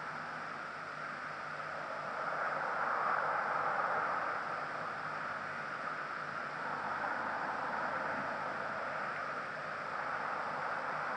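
A steady, even rushing hiss centred in the midrange, swelling slightly a few seconds in and easing back.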